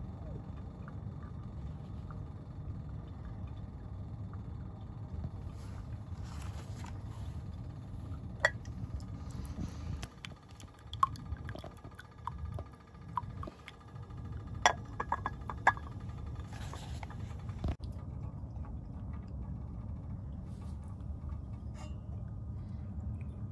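Steady low roar of a propane burner, with several sharp clinks of a ceramic pour-over coffee dripper and mug being handled in the middle and a single knock later on.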